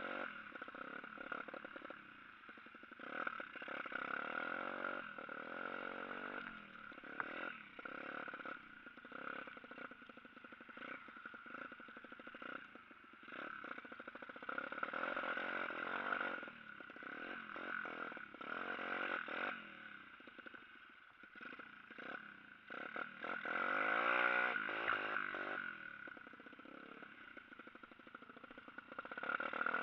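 Dirt bike engine revving up and down as it is ridden over snow, with occasional knocks; the loudest rev rises about three quarters of the way through.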